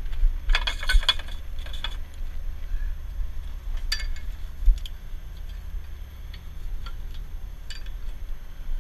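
Metal clinks and a short rattle of tow chains and rigging at a wrecker's underlift, loudest about half a second to two seconds in, with single clinks later on. A steady low rumble runs underneath.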